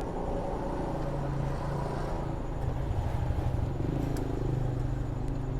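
An engine running steadily with a low hum, growing a little louder about halfway through.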